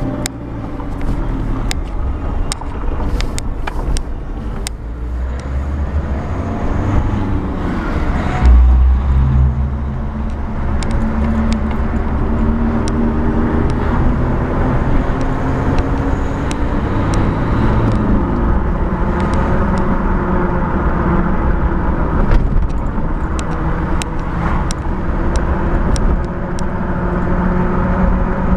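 Suzuki Jimny 1.5 DDiS four-cylinder turbodiesel heard from inside the cabin while driving, its pitch climbing and dropping as it pulls through the gears, over tyre and road noise. A heavy thump comes about eight seconds in, with scattered light clicks throughout.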